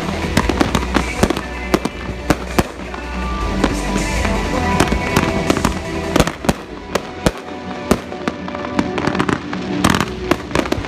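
Professional fireworks display with aerial bursts and cake volleys going off: a rapid, irregular string of sharp bangs. Music plays underneath.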